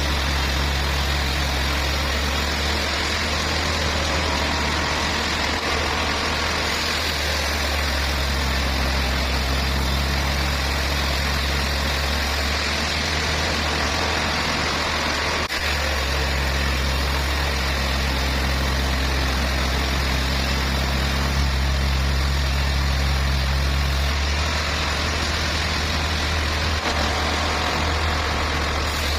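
Truck engine running steadily, a deep even hum with no clear change in speed.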